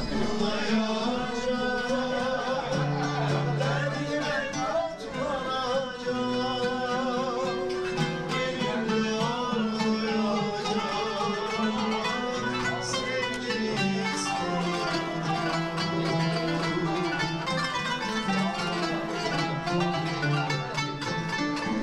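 Live Turkish music: a man singing while playing an oud, accompanied by a plucked kanun (zither).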